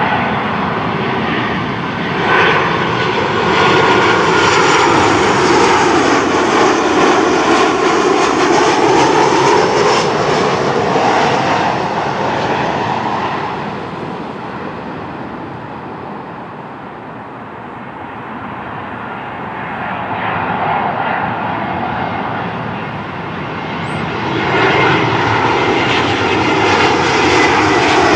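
Jet airliners on landing approach passing low overhead. The first plane's engine noise, with a thin whine and a sweeping, phasing quality, is loudest for the first dozen seconds and then fades by the middle. Near the end the next arrival, a Spirit Airlines Airbus A320, builds up loud again as it comes over.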